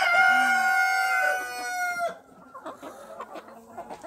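Rooster crowing: the held end of one long crow that stops about two seconds in, followed by quieter clucking from the flock.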